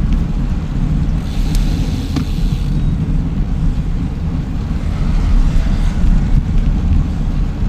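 Wind buffeting the microphone of a moving bicycle: a steady low rumble, with fainter road noise over it.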